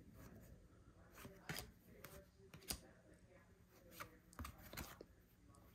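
Faint, irregular clicks and soft slides of baseball trading cards being flipped through by hand, about half a dozen light taps over several seconds.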